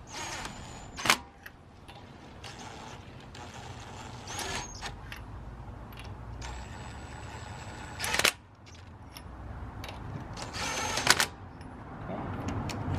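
Cordless impact wrench spinning lug nuts onto a wheel in several short runs, each with a high motor whine. The longest run lasts nearly two seconds and ends in a loud burst. A few sharp clacks fall between the runs.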